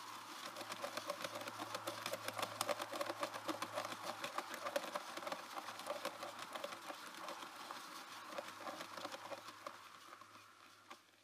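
Rapid crackling and scratching of the wood-chip nest lining in a wooden nest box as a female kestrel shuffles down onto her eggs, with a steady low hum underneath. The crackling is densest in the first half and fades out near the end as she settles.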